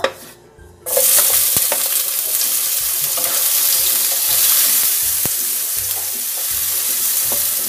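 Chopped tomatoes dropped into hot oil in a frying pan: a loud sizzle starts suddenly about a second in and keeps going steadily as they are stirred with a wooden spatula, with a couple of light taps of the spatula on the pan.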